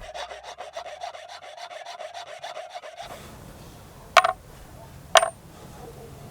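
Hand filing on a metal coin: about three seconds of quick, even strokes, with a faint steady ring from the metal. Then two sharp metallic clinks about a second apart, louder than the filing.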